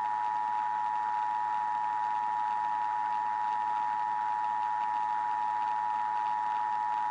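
Emergency Alert System two-tone attention signal: a steady two-tone alarm with an even hiss beneath it, the signal that announces an emergency broadcast message.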